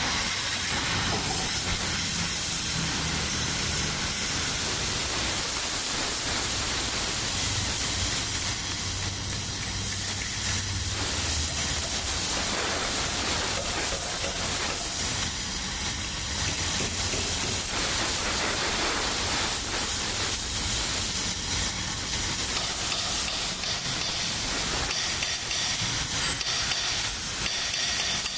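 Gas torch flame hissing steadily as it heats a cast iron exhaust manifold before welding.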